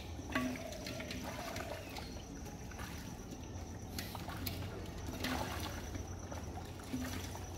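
Faint sloshing and trickling of muddy water as hands grope through shallow mud, feeling for fish, with a few soft knocks.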